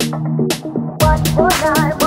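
Background pop song with a programmed drum beat and sustained synth chords; about a second in, a deep bass comes in and the track fills out.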